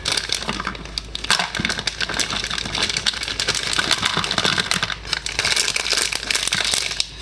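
Plastic packaging crinkling and crackling continuously as it is handled and pulled open.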